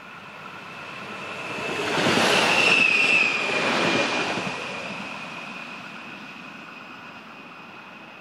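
CRRC Sifang diesel-electric multiple unit passing: the rumble of the train swells to a peak about two to four seconds in, then fades away. A high steady whine runs through it and drops slightly in pitch as the train goes by.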